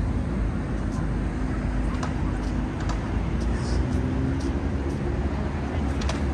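Steady rumble of city street traffic.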